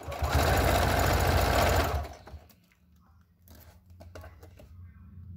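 Electric sewing machine stitching bias binding onto clear plastic, running fast for about two seconds and then stopping.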